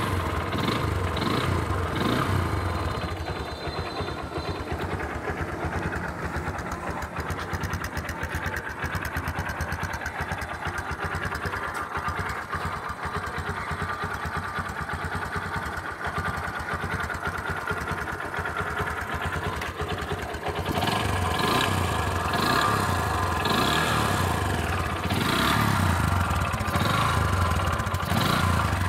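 Bajaj Discover 125's single-cylinder four-stroke engine idling steadily just after an electric start. Past the two-thirds mark it gets louder and uneven, with a few short throttle blips.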